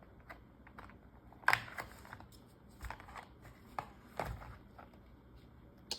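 Packing tape on a cardboard box being cut with a Buck 112 Ranger folding knife. A handful of short, scattered scrapes and taps, the loudest about one and a half seconds in.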